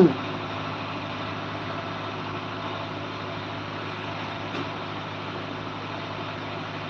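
A motor running steadily with a low, even hum. A short, loud downward-gliding sound comes right at the start.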